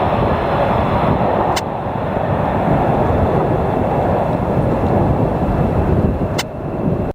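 Loud, steady rumble of F-15 fighter jet engines, with two sharp clicks, about a second and a half in and near the end. The sound cuts off suddenly at the very end.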